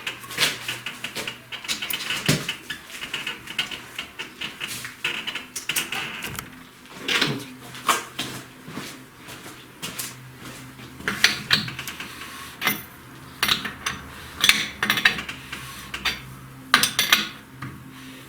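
Irregular metallic clinks, taps and knocks of hand tools against engine parts during engine assembly.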